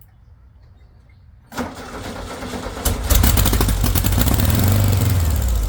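Straight-piped VW engine cranking and firing on starting spray: it kicks over about a second and a half in, catches and runs loud and fast about a second later, and starts dying away at the end, since the fuel pump is suspected of giving no fuel pressure.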